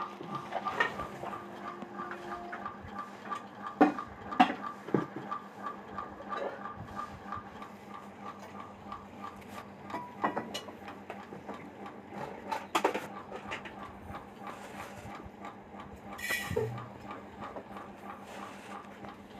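Background room noise with scattered sharp clinks and knocks, the loudest about four seconds in and again near the middle, over a faint, fast, even ticking.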